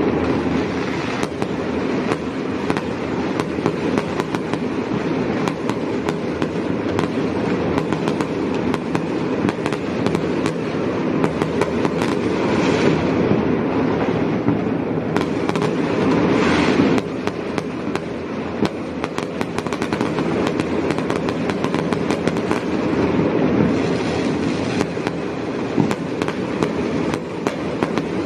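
Fireworks and firecrackers going off without a break: a dense, continuous crackle of many bangs, with a few spells of louder hissing.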